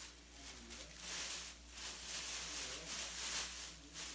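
Thin plastic bag rustling and crinkling in several short spells as it is handled and pulled open by hand.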